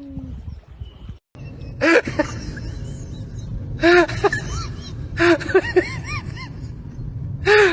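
A cat meowing in short, arching calls, four groups of them, the third a quick run of three, over a steady low rumble.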